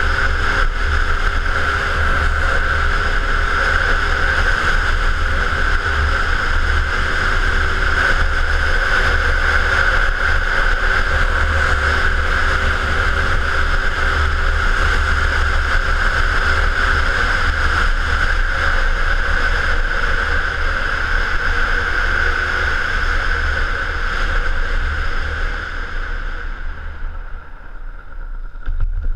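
Peugeot Speedfight 2 two-stroke scooter ridden at a steady speed: wind buffeting a helmet-mounted camera, with a steady engine note over it. Near the end the wind and the high hiss fall away as the scooter slows.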